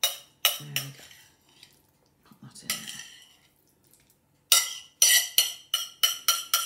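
Metal utensil scraping cold, thick cooked mince out of a pan in short, ringing strokes. There are two strokes at the start, a pause of a few seconds, then a quick run of about three strokes a second.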